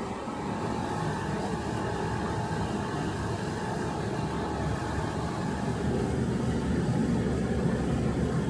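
A machine running with a steady low roar and a faint hum, getting a little louder about six seconds in.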